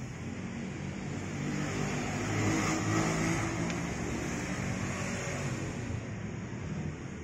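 A motor vehicle's engine running, swelling louder about three seconds in and then fading away, as a vehicle going past does.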